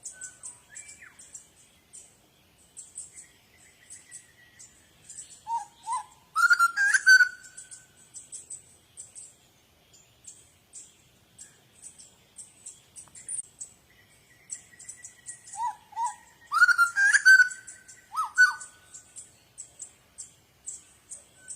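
Birds chirping: a steady run of short, very high chirps several times a second, broken twice by a louder burst of song with rising whistled notes.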